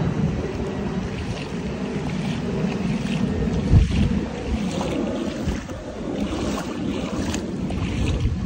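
Rain falling on a flooded street, with wind rumbling on the microphone and a few sharp splashes or knocks, the strongest about four seconds in.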